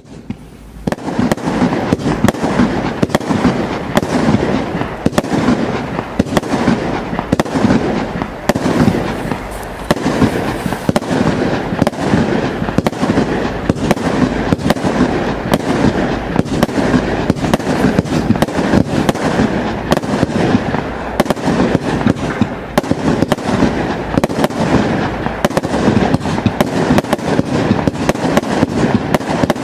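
Absolute Fireworks 'Noisy Neighbours' compound barrage cake firing continuously after ignition: a dense run of shots and bursts, several a second, with crackle between them. It starts within the first second and keeps up an unbroken barrage.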